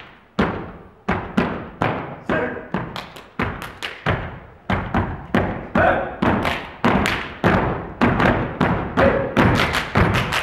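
Step team stepping: rhythmic foot stomps on a wooden stage and hand claps, each hit echoing in a large hall. The hits come about one to two a second at first, then quicker and denser from about halfway through.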